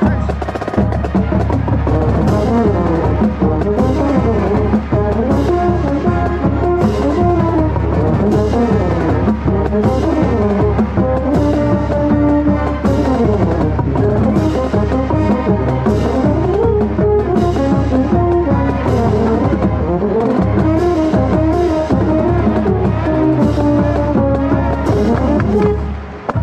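Marching band brass and drums playing a march at full volume, heard from within the baritone section, with moving brass melody lines over a steady drum beat. The playing stops near the end.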